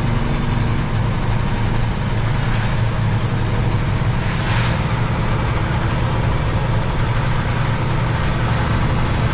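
Semi truck's diesel engine running steadily, heard inside the cab under steady road and rain noise, with a brief hiss about halfway through.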